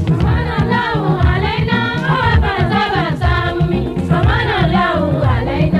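Yoruba Islamic devotional song: voices singing a winding, ornamented melody over a steady beat.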